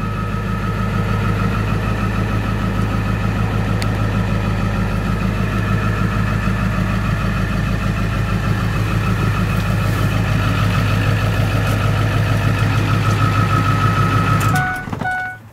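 The 2002 Ford F-350 Super Duty's 7.3-litre Power Stroke turbo-diesel V8 idling steadily, heard from inside the cab. Near the end the engine stops abruptly and a repeating electronic chime starts beeping.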